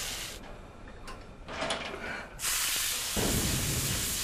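Squirrel joints sizzling as they are seared in a hot frying pan; the sizzle drops quieter for about two seconds, with a few small clicks, and comes back loud about two and a half seconds in.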